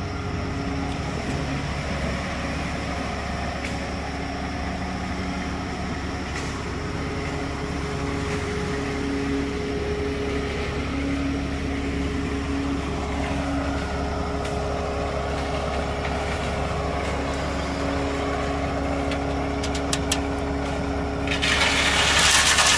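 Ready-mix concrete truck's engine running steadily. Near the end a rushing hiss sets in as wet concrete starts sliding down the chute.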